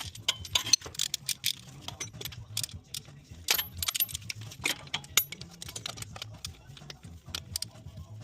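Small metal pieces clinking and tapping irregularly, several clicks a second, over a low steady hum.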